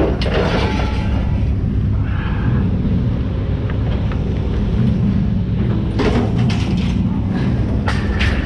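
Steady low rumble of a pickup truck running and moving, heard from inside, with a few sharp clicks or knocks about six and eight seconds in.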